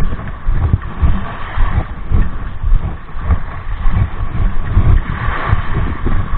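Gusty wind buffeting the microphone, rising and falling unevenly, over small waves washing onto a sandy shore.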